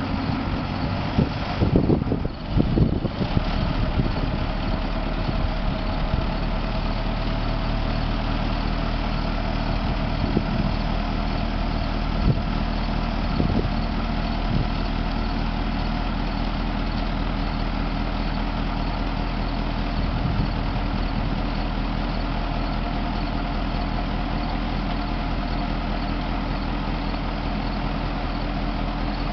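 Straight truck's engine idling steadily, with a few loud thumps about two seconds in.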